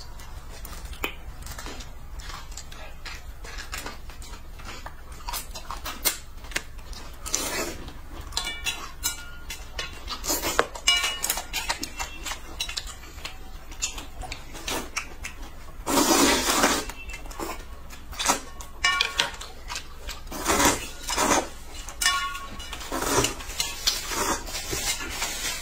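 Eating at the table: chopsticks clinking against metal noodle bowls, with noisy slurps of noodles and broth. The longest, loudest slurp comes about two thirds of the way in.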